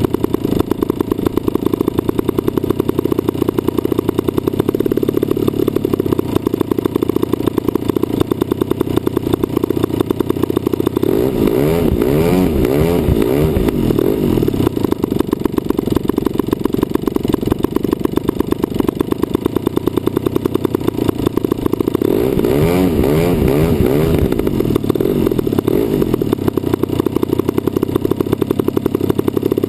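DLE 55cc single-cylinder two-stroke gasoline engine of a radio-controlled Cessna 182 model running steadily at close range, a fast buzzing drone. Twice, roughly a third and three-quarters of the way through, its pitch wavers up and down for a few seconds.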